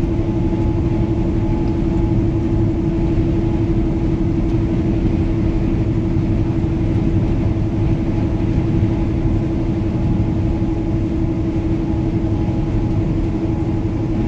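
Semi truck's diesel engine and road noise heard inside the cab at steady highway cruise: an even low drone with a constant hum.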